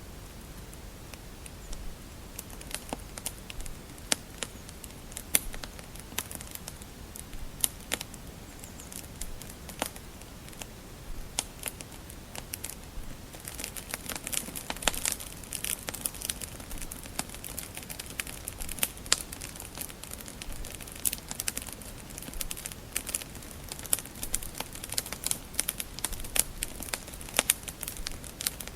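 Wood fire crackling: irregular sharp pops and snaps over a low steady hiss, growing denser and brighter about halfway through.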